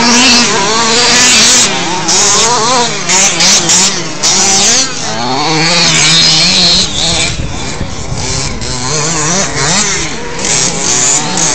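Several radio-controlled off-road race cars running laps, their small motors buzzing and revving up and down over each other.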